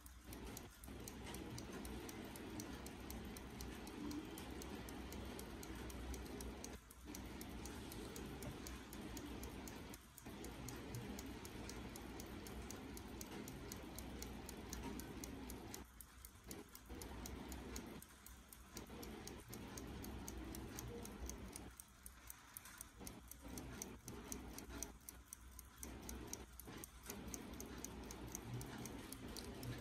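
Westclox pocket watch movement ticking, a fast, even run of light ticks from its pin-lever escapement as the balance wheel swings.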